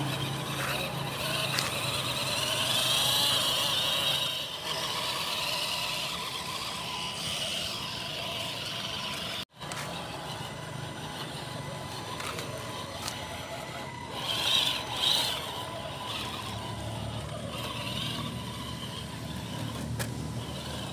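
Electric motor and gearbox of a 1/10-scale RC crawler whining as it crawls over loose dirt and clods. There are two short, louder bursts of whine about two-thirds of the way in. The sound cuts out for an instant about halfway.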